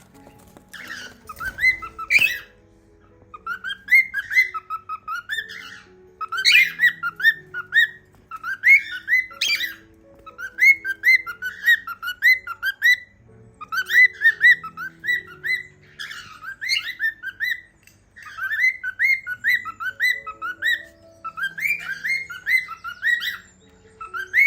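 Cockatiel whistling in repeated phrases of short rising notes, over soft background music.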